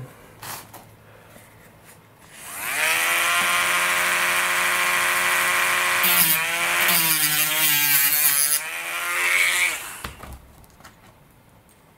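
Dremel rotary tool with a cutoff wheel spinning up about two seconds in and running at a steady high whine. About six seconds in it dips and wavers in pitch as it cuts through a carbon-fibre pushrod, then winds down a little before the end.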